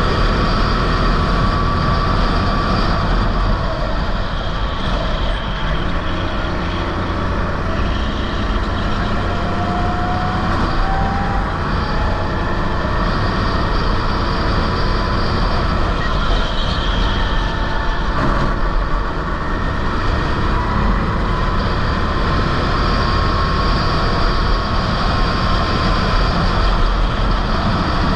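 Sodi rental go-kart engine running flat out in the race, heard on board. Its pitch rises and falls slowly with the throttle through the corners.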